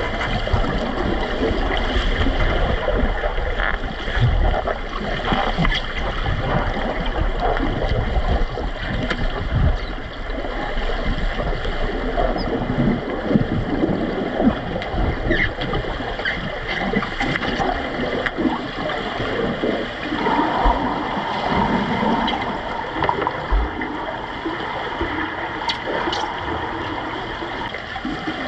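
Underwater pool sound picked up by a camera below the surface: a steady rushing and gurgling of moving water and bubbles, with scattered small knocks and clicks as players in fins kick and grapple over the goal basket.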